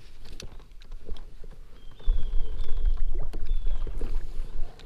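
Small clicks and knocks from a plastic kayak and spinning-reel fishing tackle being handled on the water. A low rumble of wind on the microphone comes in about two seconds in and fades near the end.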